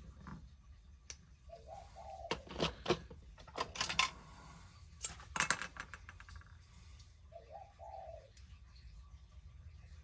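Small metal hook tool clicking and scraping against a diecast metal toy van body as tabs and windows are prised loose, in a quick scatter of clicks over the first half. A dove coos twice in the background, once near the start and again near the end.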